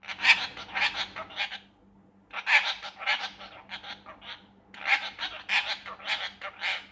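Pet parrot squawking in three bouts of short, harsh calls, with brief pauses between the bouts.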